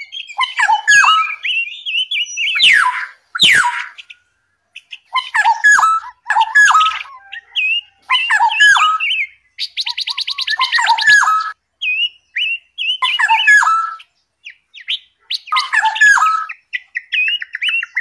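Small aviary songbirds chirping in short repeated phrases of quick, sharply sweeping high notes, with pauses between phrases and a fast, even trill about ten seconds in.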